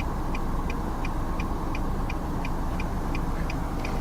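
A steady low rumble, with a faint high tick repeating evenly about three times a second.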